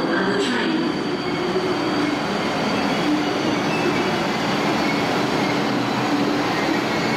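MTR East Rail Line electric train running alongside the platform as it slows to a stop, a steady noise of wheels and running gear with a faint squeal.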